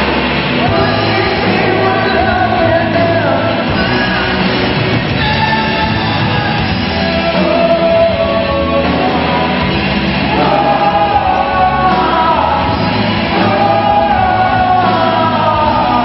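Live rock band playing a song, with electric guitars, drum kit and keyboard under several voices singing together. The sound is loud and steady, with no break.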